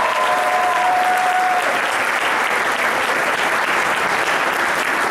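Audience applauding steadily, with a couple of long held tones fading out in the first two seconds.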